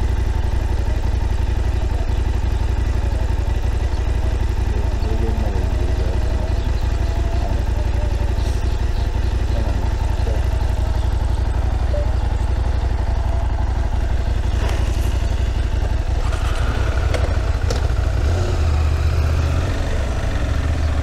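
Motorcycle being ridden on the road, engine running steadily under a heavy low rumble.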